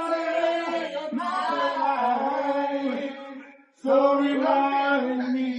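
Voices singing a slow chant in long held notes, breaking off briefly a little before four seconds and then carrying on.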